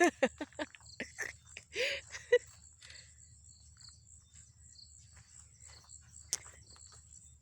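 Insects trilling: a high, steady, pulsing buzz. A voice is heard briefly in the first two seconds, and there is a single sharp click about six seconds in.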